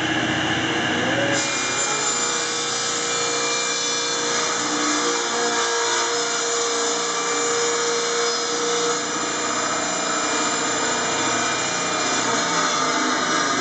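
Delta table saw running steadily as its blade rips a sheet of plywood to width. The sound changes about a second and a half in.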